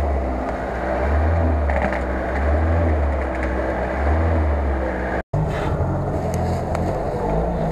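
Off-road 4x4 engine running under load in deep mud, swelling and easing every second or so. About five seconds in the sound breaks off sharply and picks up again on a UAZ-469's engine working through the mud.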